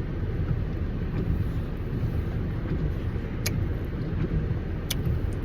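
Steady low rumble of a car idling, heard from inside the cabin, with two short sharp clicks about three and a half and five seconds in.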